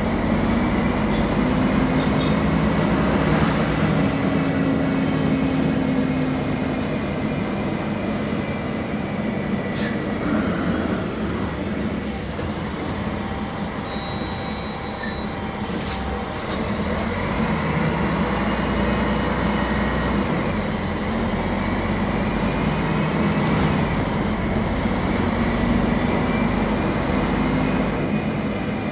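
Mercedes-Benz OM-457 LA straight-six diesel of an articulated city bus, heard from inside the cabin, pulling with its pitch rising. It eases off and gets quieter in the middle, with a couple of sharp knocks, then pulls up again.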